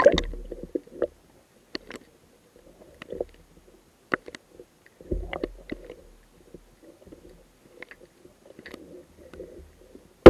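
Muffled water heard with the camera just under the sea surface: sloshing and gurgling, with scattered sharp clicks and knocks, and a low rumble at the start and again about five seconds in.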